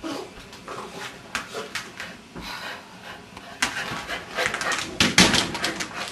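Irregular rustling and rubbing noises, loudest about four to five seconds in, as a wet cocker spaniel is handled and towelled dry.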